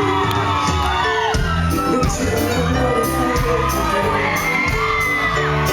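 Live reggae band playing in a concert hall, with a heavy bass line that comes in strongly about a second in, and the crowd whooping and singing along over it.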